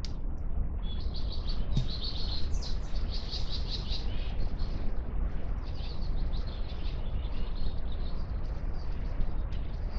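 Small birds chirping and twittering over and over in woodland, over a steady low rumble.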